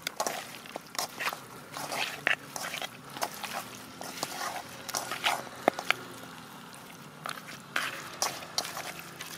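A hand squishing and turning marinated chicken pieces in a metal pot: irregular wet squelches and clicks.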